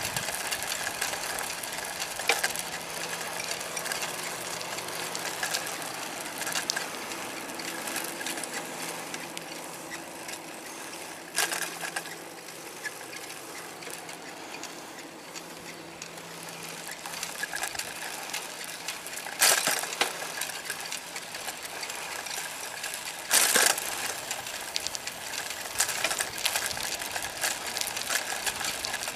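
Bicycle being ridden on an asphalt path: a steady rattle of the bike and its tyres with a noisy hiss and scattered clicks, broken by a few sharp knocks, the loudest about 19 and 23 seconds in.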